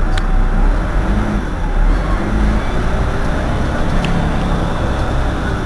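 Irisbus Citelis 18 articulated bus's engine idling, a steady low rumble.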